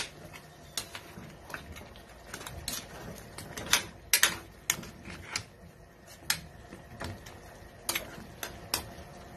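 A ladle stirring chunks of beef in a thick sauce in an aluminium pan, giving irregular clinks and taps against the pan's side and bottom. The loudest knocks come about four seconds in.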